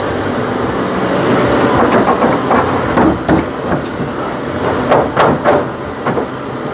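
Hand tools knocking and clicking on metal under a car while working loose a tight fuel-tank fitting, with scattered irregular knocks over a steady background noise.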